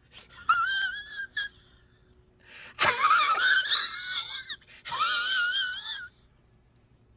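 High-pitched wailing sound effect: three wavering cries, the first short and the last two longer.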